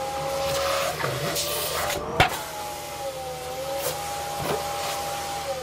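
Vacuum cleaner running with a steady whine and rushing air as its nozzle is worked over mink fur. There is a sharp click about two seconds in, and the motor begins to wind down, falling in pitch, at the very end.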